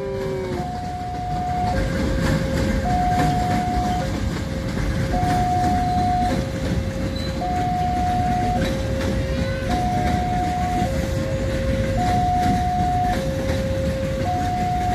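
Level crossing warning alarm sounding a steady two-tone signal, a higher and a lower tone alternating about once a second. Beneath it an electric KRL commuter train rumbles past on the tracks, with light clicking from the wheels.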